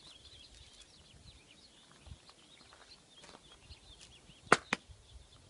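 Light crunching of feet on gravel, with faint bird chirping. Two sharp clicks come close together about four and a half seconds in.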